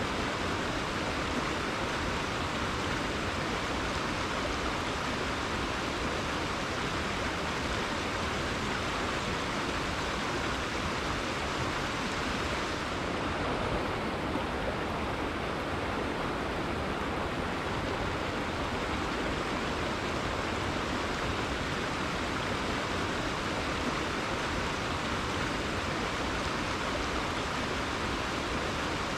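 Rainforest river flowing: a steady, even rush of water, its higher hiss easing briefly about halfway through.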